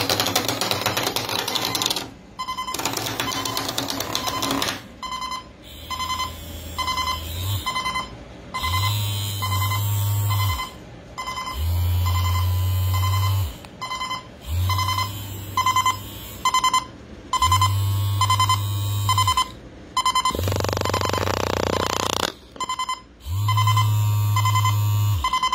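Vibrating alarm clock going off: a harsh, buzzy alarm sound for the first five seconds, then clusters of rapid high beeps. Under the beeping, its bed shaker vibrates with a low hum that pulses on and off in blocks of about two seconds.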